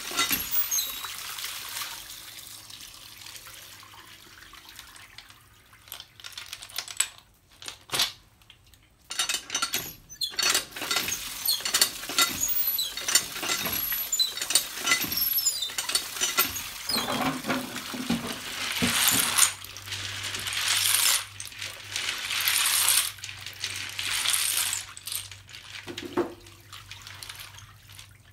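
Water from a hand pump splashing onto a metal basin of sikad-sikad sea snails, the shells clinking and rattling as they are rinsed and turned by hand. The splashing comes in surges, strongest in the second half.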